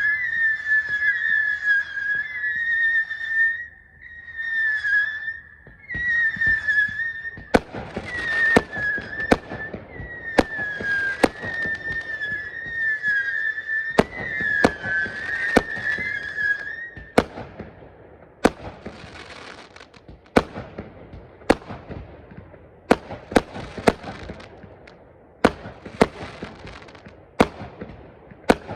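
Fireworks display: shrill whistling fireworks wavering in pitch, one after another, for the first half, joined partway through by a rapid series of sharp bangs with crackle between them, and the bangs carry on alone near the end.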